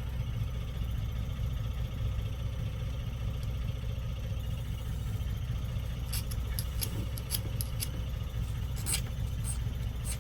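Steady low mechanical hum, with a few light clicks between about six and nine seconds in.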